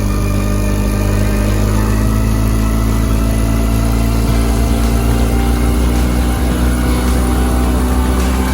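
Suzuki 9.9 hp outboard motor running steadily, misfiring; the owner blames the misfire on Techron Marine fuel stabilizer.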